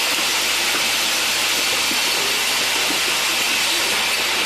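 Steady hiss of an automatic assembly and packaging machine running, with faint short knocks and tones underneath.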